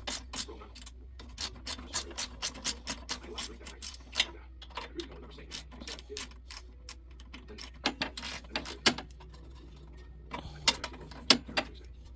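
Socket ratchet clicking in quick runs of about four clicks a second as bolts are backed out of a snowblower shroud, with a few sharper metal knocks in between.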